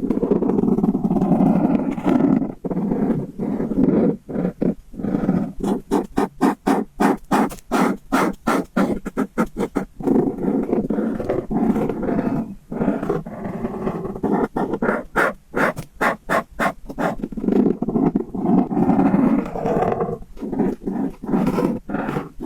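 Duck quacking in rapid runs of short, raspy calls, several a second, with brief pauses between the runs.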